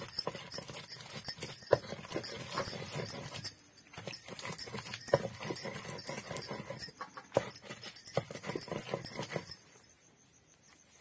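A stone roller rolled back and forth over a flat grinding stone (sil-batta), knocking and scraping as it crushes tomatoes and coriander into wet chutney. The strokes stop about nine and a half seconds in.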